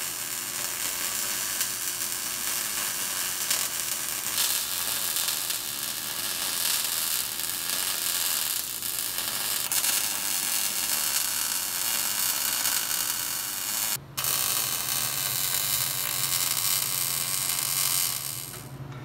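MIG welder arc crackling and hissing steadily as a bead is run along the seams of a steel C gusset on a forged axle C knuckle. The arc breaks off for a moment about three-quarters of the way through, then restarts and stops near the end.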